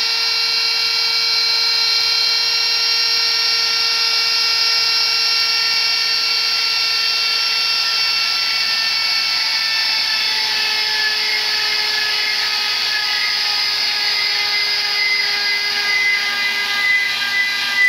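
Die grinder with a V-groove router bit whining steadily at high speed while it cuts a groove into a wooden rosette blank turning on the lathe. Its pitch drops slightly about ten seconds in, and the level starts to waver near the end.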